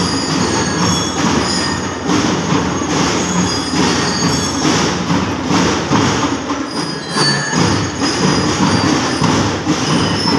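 Drum and lyre corps playing loudly: drums beating under short, high bell-lyre notes, with crowd noise mixed in.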